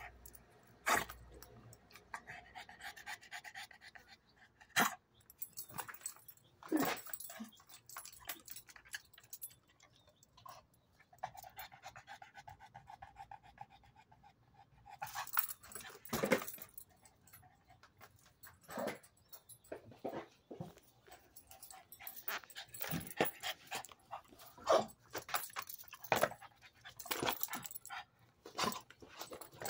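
Dogs panting, including a pug, with scattered short sharp noises and a drawn-out whine about two seconds in and again around eleven seconds.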